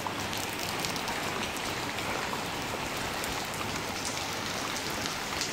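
Heavy rain falling: a steady, even hiss with many small drop clicks running through it.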